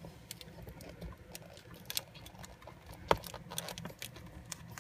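Scattered small clicks and light scratching from hands handling a laptop's display cable connector and LCD panel, with one sharper click a little after three seconds in.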